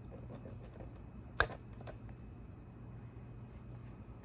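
A rubber fuel hose being worked off the brass barb of an outboard carburetor with a spring hose clamp: faint handling noises and one sharp click about a second and a half in, over a steady low hum.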